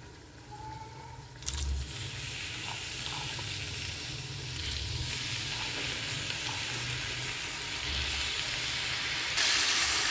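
Salted, squeezed-out bitter gourd pieces drop into hot oil in an aluminium pan about a second and a half in and start sizzling, then fry steadily. The sizzle grows louder near the end as a slotted metal spatula stirs them.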